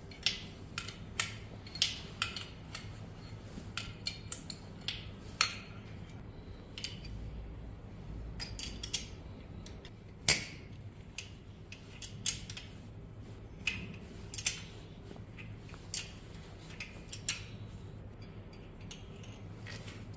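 Metal tools and parts being handled: irregular sharp clinks and clicks, a few of them loud, over a low steady hum.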